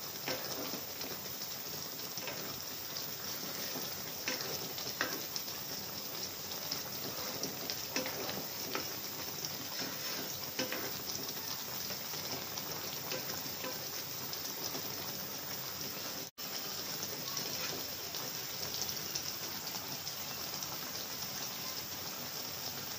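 Sugar-and-vinegar syrup boiling hard around green mango pieces in a pan: a steady bubbling hiss. There are a few soft knocks from a wooden spatula stirring in the first half, and the sound breaks off for an instant about two-thirds through.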